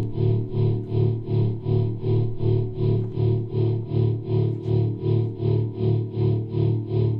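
Background music: a low sustained tone pulsing evenly, about three beats a second.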